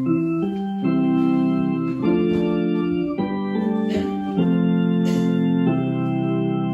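Organ playing the introduction to a hymn: held chords that change every second or so.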